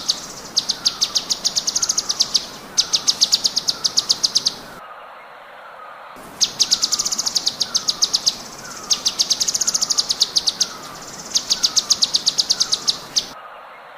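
Cucak cungkok song: rapid bursts of sharp, high, dry notes fired in quick succession, each burst lasting about a second, with short pauses between. The song cuts out for about a second near the middle and again near the end. Fainter falling chirps repeat about twice a second underneath.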